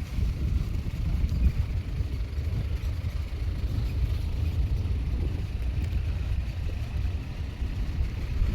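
Low, uneven rumble of an open safari Gypsy jeep driving along a forest track: engine and tyre noise mixed with wind buffeting the microphone.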